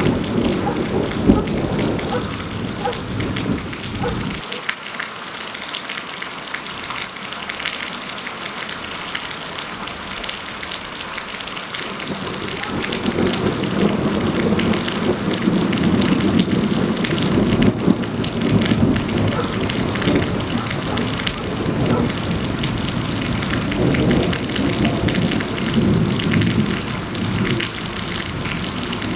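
Heavy rain falling steadily, with a low rumble of thunder for the first few seconds that stops suddenly, and another long rumble building from about twelve seconds in.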